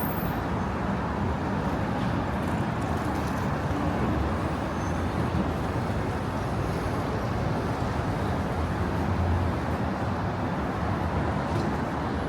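Steady city street traffic noise: an even rumble of passing vehicles with no single event standing out.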